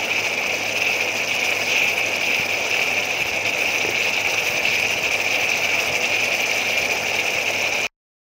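Kidney beans and spice paste sizzling steadily in hot mustard oil in a kadai, frying until the oil separates. The sound cuts off abruptly near the end.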